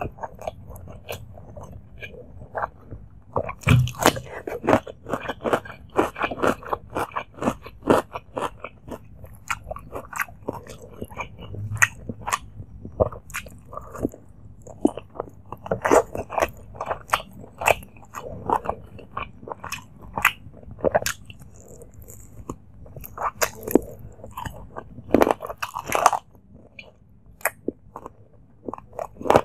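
Close-miked chewing of mouthfuls of rice and spicy chicken curry eaten by hand: an irregular run of wet, crackly mouth clicks and bites, several a second.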